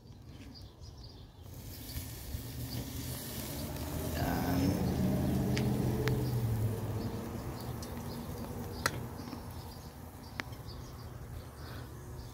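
Metal tongs clicking against a stainless steel pot as marinated beef ribs are lifted, a few sharp clicks spaced out over several seconds. Under it a steady faint hiss and a low drone that swells in the middle.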